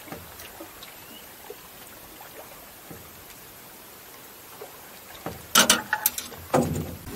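Light water lapping against a small fishing boat's hull with a few faint ticks. About five seconds in, a run of loud knocks and clatter, like gear being handled in the boat.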